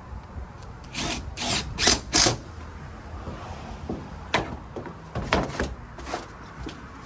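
Cordless drill driving a screw through tin roofing sheet, run in four short bursts about a second in, followed by a few shorter, sharper sounds later on.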